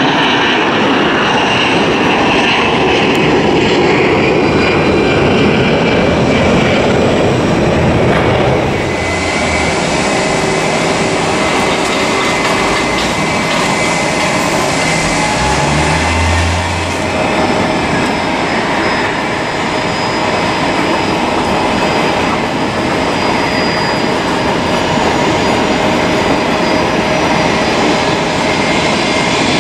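Airliner jet engines: an Airbus A320 climbing out at takeoff thrust for about the first nine seconds, then a sudden switch to the steadier whine of jet airliners taxiing at low power, with a few thin steady tones over the engine noise.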